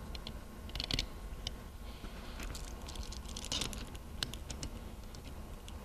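Scattered light clicks and taps of steel parts being handled, with a few denser clusters: stuffing box wiper segments being fitted into place and a locking C-clamp set on them.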